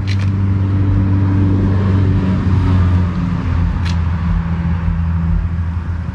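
Steady low hum of an idling vehicle engine, easing slightly about halfway through, with a single short click about four seconds in.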